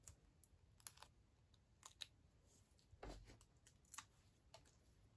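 Near silence with a handful of faint, scattered clicks and light rustles of small paper-craft supplies being handled, the fullest about three seconds in.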